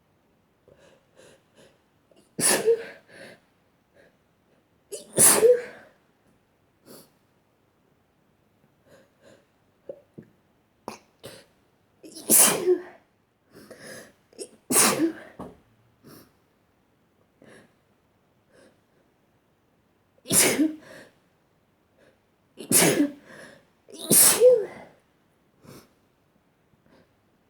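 A person sneezing again and again: about seven loud sneezes in three bouts, two together, then two, then three close together near the end, with short quieter sounds between them.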